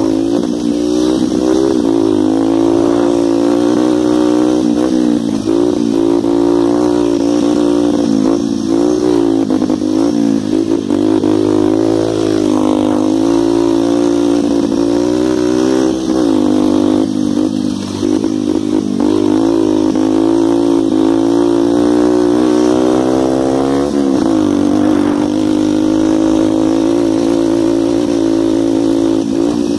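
A 125 cc dirt bike's engine running hard while riding, heard from on the bike, its pitch wavering up and down with small throttle changes and a short dip about three-quarters of the way through.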